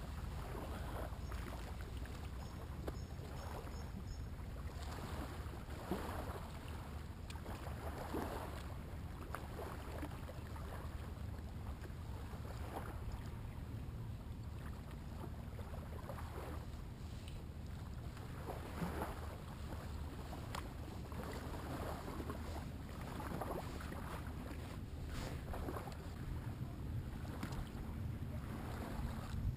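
Wind rumbling on the microphone, with small waves lapping softly at the water's edge every second or two.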